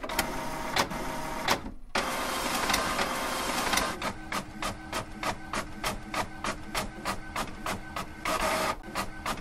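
Typewriter typing: a few separate key strikes, then a second or two of dense clattering, then a steady run of keystrokes at about four or five a second.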